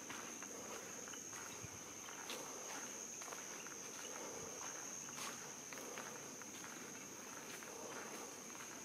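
Footsteps crunching on a leaf-litter trail, a few faint irregular steps, over a steady high-pitched insect drone.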